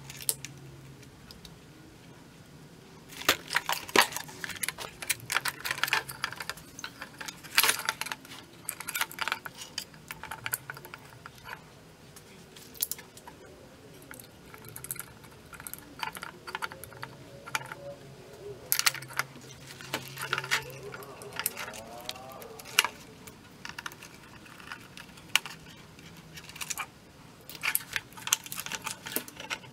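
Irregular clicks, taps and clatter as the plastic housing, wiring connectors and parts of a disassembled Ninja OP301 pressure cooker/air fryer are handled and shifted.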